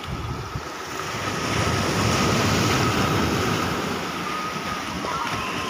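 Sea waves breaking and washing over rocky shore boulders. The surf swells loudest about two seconds in, then eases, with wind on the microphone.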